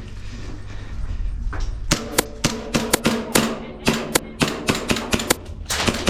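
Airsoft gun firing a rapid string of sharp shots, about four or five a second, starting about two seconds in and stopping just before the end.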